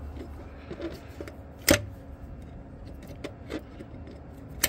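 Pliers working a spring hose clamp onto a rubber coolant hose at the throttle body: a few light metallic clicks and clinks, with one sharp snap just under two seconds in.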